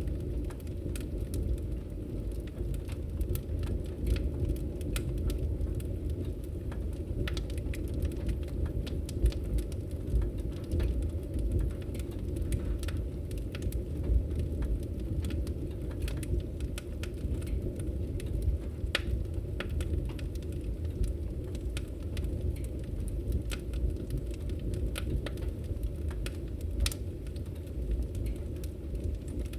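Fire crackling in a fireplace: many irregular sharp pops and snaps over a steady low rumble of burning.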